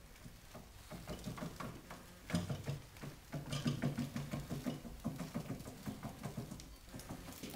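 Hand-cranked pottery slab roller turned slowly by its handwheel, its gearing giving irregular clicks and creaks while the steel roller rumbles in stretches as it draws etching blankets through under pressure.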